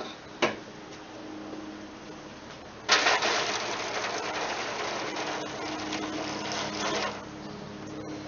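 Boiling water being poured through the grill grate into a foil water pan in a Weber charcoal kettle, splashing and hissing for about four seconds, with a small knock just before.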